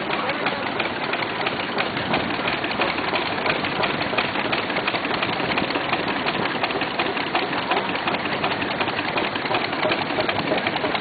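Steam engine running steadily, with a fast, even mechanical clatter of many small knocks.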